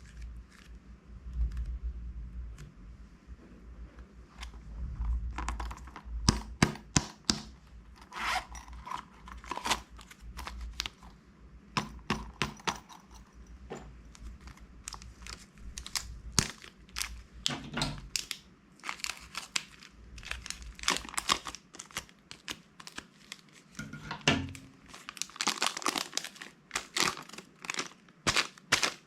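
Plastic packaging crinkling and tearing as it is handled and opened by hand, in irregular clusters of sharp crackles.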